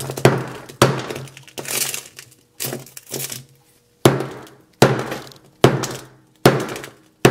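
Hammer blows on a Samsung Galaxy S7 Edge's shattered glass screen, repeated a little under once a second. Each blow is a sharp hit followed by crunching, crackling glass.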